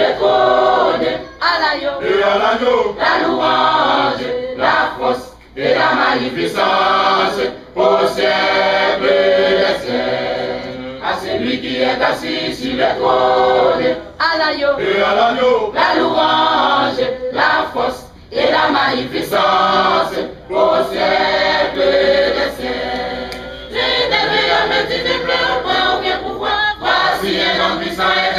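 Church choir of women's and men's voices singing together in harmony, in sung phrases broken by short breaths.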